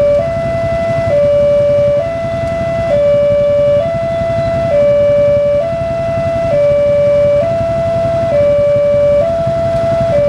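Railway level-crossing warning siren sounding a two-note alternating tone, stepping between a lower and a slightly higher pitch about once a second, which warns that a train is approaching. A low rumble runs underneath.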